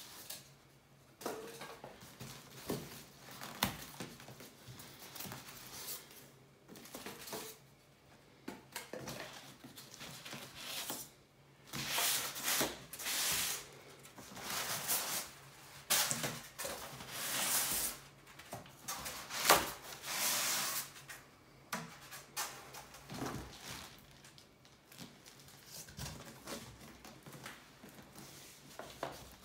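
Cardboard packaging and packing inserts being handled as a large shipping box is unpacked: irregular rustling, rubbing and scraping, louder through the middle, with one sharp knock about two-thirds of the way through.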